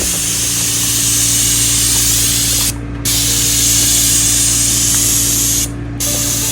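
Paint sprayer spraying barn paint: a loud, steady hiss that stops briefly twice, about three and six seconds in, as the trigger is let go, over a steady low hum.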